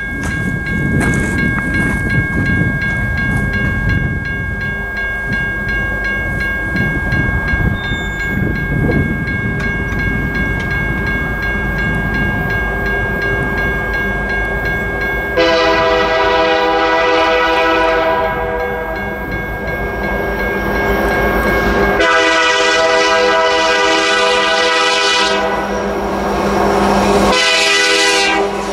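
A train rolls past with a low rumble. About halfway through, a diesel locomotive's air horn starts sounding in long blasts with short breaks, still blowing at the end.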